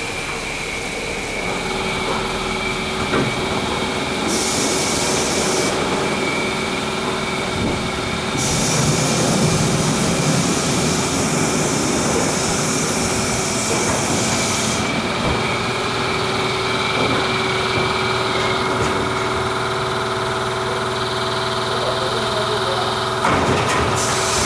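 Steady hum of running machinery and engines at a car wash, with a constant high whine over it.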